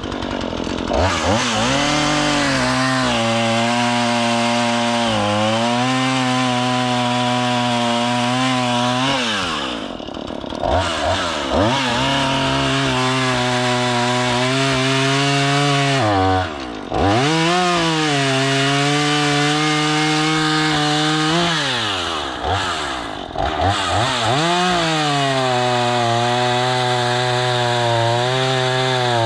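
Gas chainsaw cutting logs, running at high revs with a steady whine, then dropping back and revving up again about four times.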